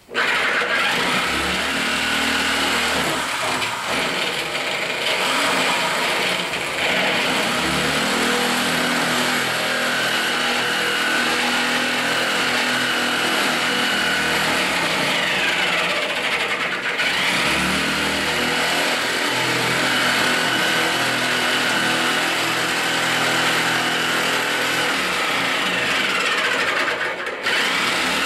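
Electric sheet-metal shear running as it cuts through the pickup's old floor pan, a steady motor whine with a lower chatter, briefly easing off about two-thirds of the way through and again near the end.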